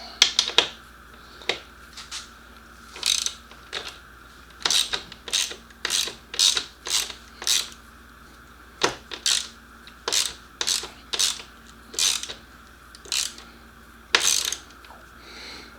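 Hand ratchet wrench clicking in short repeated bursts, about twenty strokes with pauses between, as bolts are run down and tightened by hand rather than with power tools.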